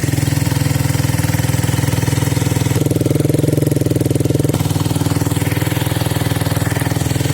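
Motorcycle engine idling steadily, with an even, rapid pulse.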